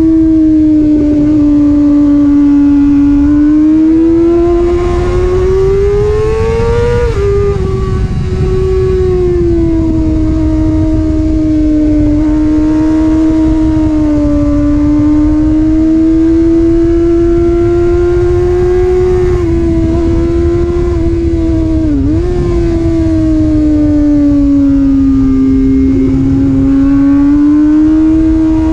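Sport motorcycle engine at high revs, heard from on board at speed, with wind rushing beneath it. The pitch rises and falls through the corners, climbs and then drops abruptly about a quarter of the way in, and dips sharply and briefly about three-quarters of the way through.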